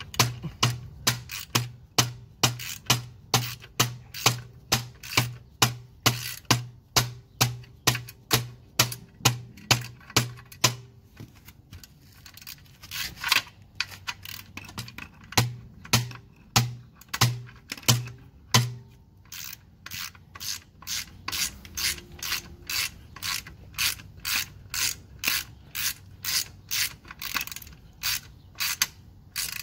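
Socket ratchet clicking in quick, even strokes, about three a second, as it turns a mounting bolt under a Harley-Davidson slip-on muffler. It pauses briefly about twelve seconds in and again around nineteen seconds, then carries on with lighter clicks.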